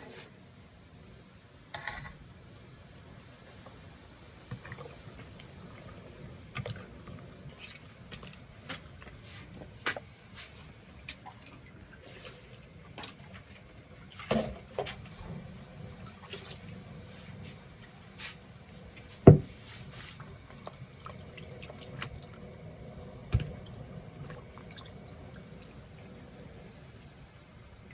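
Kitchen water sounds: water splashing and dripping, with scattered clinks and knocks of kitchenware, the loudest knock about two-thirds of the way through.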